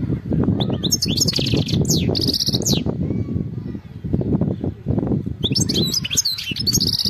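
European goldfinch singing: two bursts of fast, high twittering with a buzzy trill, the first about half a second in and the second near the end, over a low rumbling noise.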